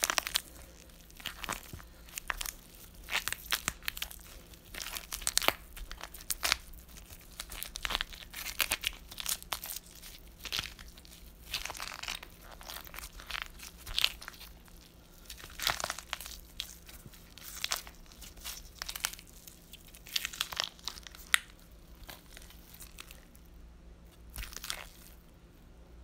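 Horror foley of a person being eaten alive: irregular crunching, tearing and chewing that runs on in uneven clusters, over a faint steady low hum. It stops abruptly at the end.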